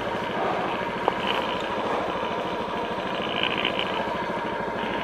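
Honda scooter engine idling steadily while the bike stands still, with a small click about a second in.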